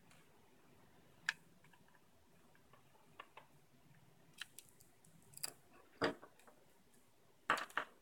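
Small clicks and taps of a Phillips screwdriver and tiny screws in the plastic battery compartment of a LEGO Mindstorms EV3 brick as the screws are backed out. They come scattered, with louder knocks about a second in, about six seconds in and a cluster near the end.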